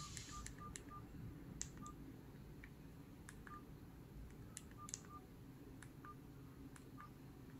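ECG-942 cordless SIM-card handset's keypad beeping faintly as its navigation keys are pressed: about ten short single-tone beeps, a quick run of them at the start and the rest spaced irregularly, with light key clicks in between.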